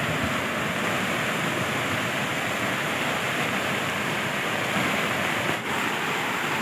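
Steady rush of the flooded Simsang river, its fast brown floodwater running high, mixed with heavy rain.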